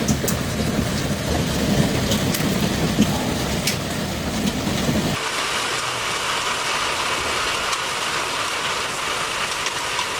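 Heavy rain pouring down, with scattered sharp impact ticks in the first half. About five seconds in the sound changes abruptly to a steadier, higher hiss of rain.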